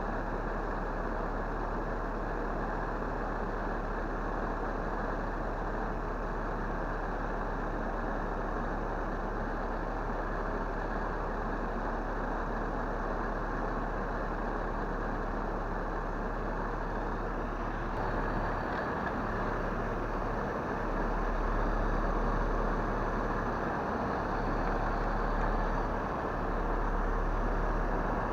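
A car engine running steadily. It grows a little louder and more uneven about two-thirds of the way through.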